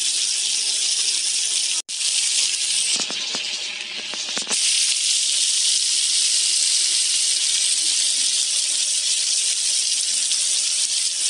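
Squid sizzling on a hot pan: a steady high hiss, with a spell of crackling pops from about three seconds in. The hiss cuts out for an instant about two seconds in.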